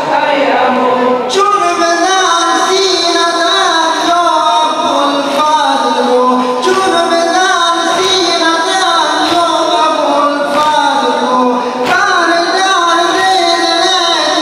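A noha, a Shia mourning lament, sung by a male reciter through a microphone in a large hall, with the mourners' unison chest-beating (sinezani) striking in time, about three beats every four seconds.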